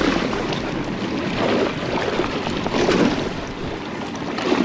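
Water splashing and sloshing around a paddle board on choppy water, swelling about every second and a half, with some wind noise.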